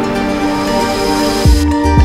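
Background music with held melodic notes; about a second and a half in, a new passage starts with a deep kick drum and plucked strings.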